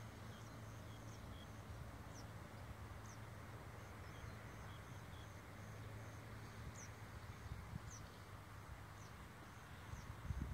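Faint birds calling: short, high, falling chirps about once a second, with a rapid run of short high notes between them, over a steady low rumble.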